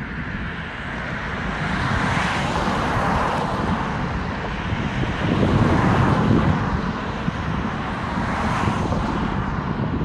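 Road traffic on a bridge: a steady rush of tyre and engine noise that swells several times as cars go by.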